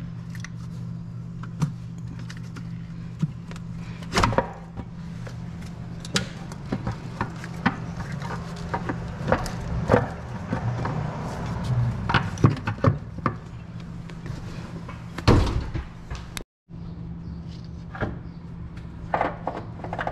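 Irregular clicks, knocks and clunks of hands working an engine valve cover loose and lifting it off, with two louder knocks about four seconds in and around fifteen seconds.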